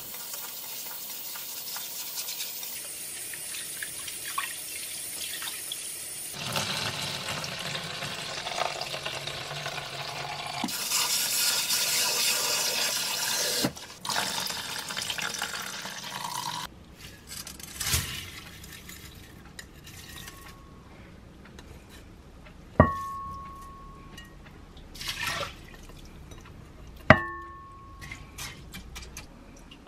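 Tap water running into a glass bowl while brown rice is swished and rinsed by hand, then the cloudy rinse water poured off. After that come quieter handling clicks and two sharp ringing clinks, about four seconds apart.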